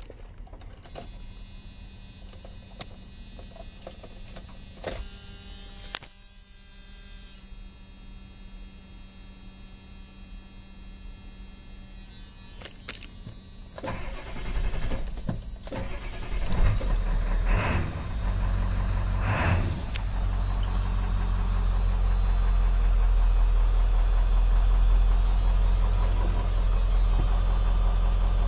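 A 1996 Ford F-450's 7.3 L Power Stroke turbo diesel being started: a faint steady tone with the key on, then from about 14 s in the engine is cranked and fires, and it settles into a steady low idle rumble that grows louder over the last several seconds.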